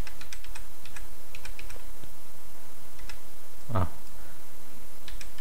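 Computer keyboard keys being typed: scattered single keystrokes with gaps between them, and one short vocal sound a little before four seconds in.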